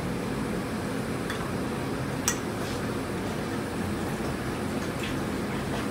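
Steady hum of commercial kitchen equipment, with one sharp click a little over two seconds in and a few faint taps as pico de gallo is spooned from a ramekin onto a burger.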